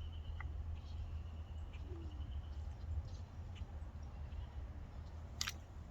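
Steady low hum with a faint thin high tone in the first half, and a few faint clicks of small carburetor parts being handled while the diaphragm is worked out; one sharper click comes near the end.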